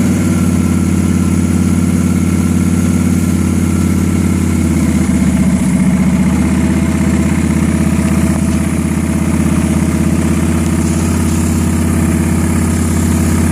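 Engine idling steadily, with a slight rise in the idle about five seconds in. The owner suspects the engine has a vacuum leak.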